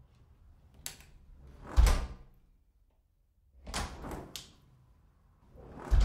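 Apartment front door opening and closing twice. A latch click about a second in is followed by the door shutting with a heavy thud. Latch clicks and door movement come around four seconds in, and the door shuts again with a thud at the end.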